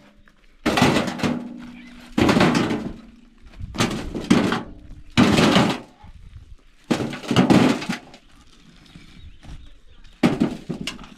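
Rough stones being picked from a rubble pile and tossed into a metal wheelbarrow, landing with a loud clatter of rock on rock and metal several times, every second or two.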